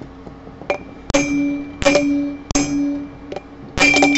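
Hammer blows on an old wheel bearing held as a driver, tapping a new bearing's outer race into a Harley Dyna's front wheel hub. A handful of evenly spaced strikes, each ringing on metallically, then a quick flurry of blows near the end as the bearing goes nearly all the way in.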